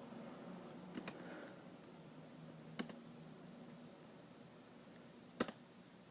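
A few sharp computer mouse clicks: a quick double click about a second in, a single click near three seconds and another double click near the end, over a faint steady low hum.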